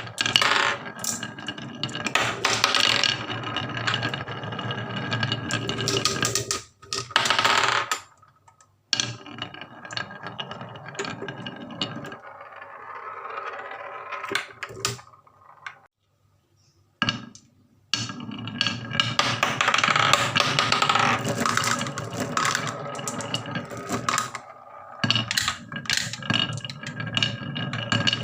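Marbles rolling and clattering along a wooden HABA marble run: a dense rattle of small clicks and knocks, dropping out twice for about a second in the middle.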